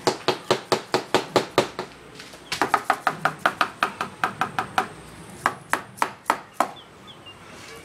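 Leghorn rooster pecking with its beak: quick runs of sharp taps, about five a second, with a brief pause near two seconds in and a few single taps near the end.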